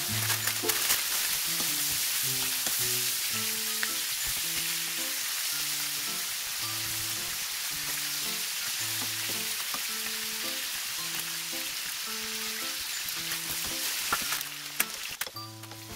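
Slices of smoked duck sizzling and spitting in hot fat in a frying pan, turned now and then with a spatula, with scattered sharp pops. The sizzle drops away sharply about a second and a half before the end.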